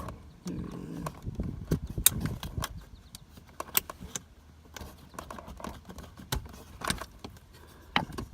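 Irregular sharp plastic clicks and rattles as fingers work at the small wiring connector clip on a car door's window switch, trying to release it.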